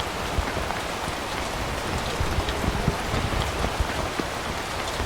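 Heavy tropical rain falling steadily, with many separate drops striking close by.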